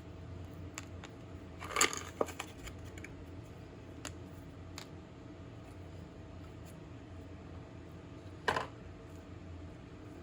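Light clicks and taps of small kitchen items being handled, with two short rustling noises, one about two seconds in and one near the end, over a faint steady hum.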